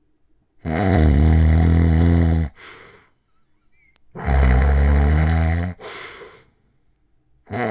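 A man snoring loudly and deeply in his sleep: two long snores of about two seconds each, each followed by a short, softer breath, and a third snore starting near the end. The snoring comes from sleep apnea, by the sleeper's own account.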